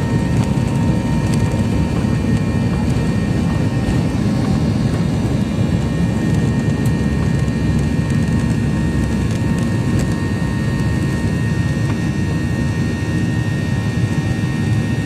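Airplane engines running loud and steady during takeoff: a continuous low rumble with a thin, steady high whine above it.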